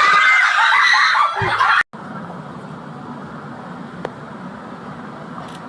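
A loud, very high-pitched, wavering shriek that lasts under two seconds and cuts off abruptly. A steady, quieter background rumble and hiss follows.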